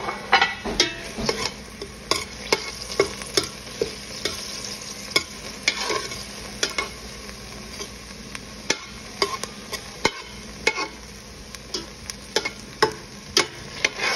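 A utensil scraping and clicking against a stainless steel pan while stirring frozen peppers and onions sautéing in oil, in irregular strokes about one or two a second, over a light frying sizzle.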